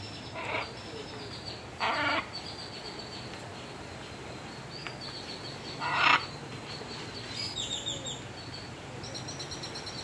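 Macaw giving three short, harsh squawks, about half a second, two seconds and six seconds in, the last the loudest. Small birds twitter high and fast throughout.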